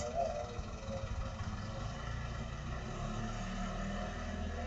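Low, steady rumble of motor vehicle engines running close by: a motorcycle moving off and a small box truck in the lane.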